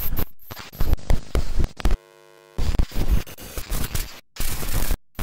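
Harsh static and glitch noise of breaking-up videotape playback, chopped into bursts with abrupt dropouts. About two seconds in the noise gives way for half a second to a steady buzz.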